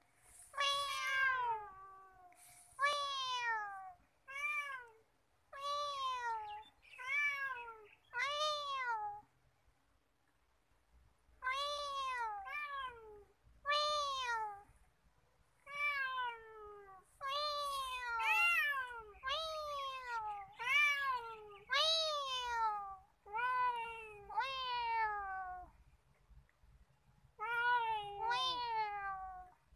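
A domestic cat meowing again and again, about twenty meows, each rising then falling in pitch. The run breaks off for a couple of seconds about ten seconds in and again about twenty-five seconds in.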